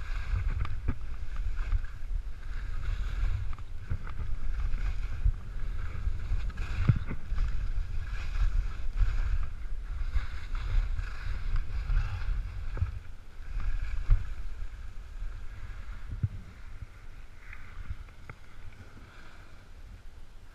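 Wind buffeting a helmet-mounted camera's microphone while skiing downhill, with skis scraping and hissing over firm, chopped snow through the turns and a few sharp knocks. It grows quieter near the end as the skier slows.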